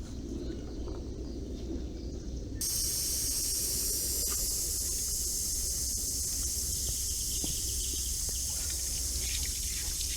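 Air hissing steadily out of a scooter's tubeless front tyre as it is deflated to lower the pressure before a puncture repair. The hiss starts abruptly a little over two seconds in.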